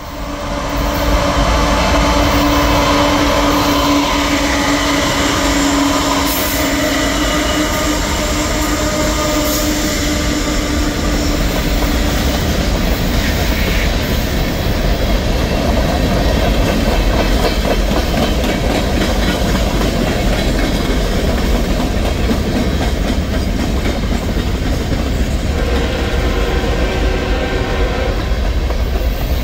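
Freight cars of a passing freight train rolling by at close range: loud, steady noise of steel wheels on the rails that comes in at once at the start, with a held tone over roughly the first twelve seconds.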